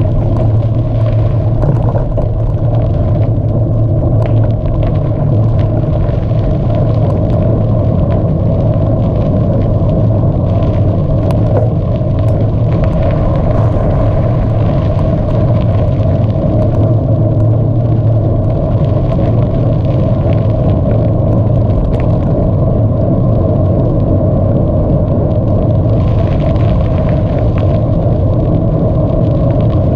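Bicycle riding along a track: a steady loud rumble of wind and tyres, with many small rattles and clicks.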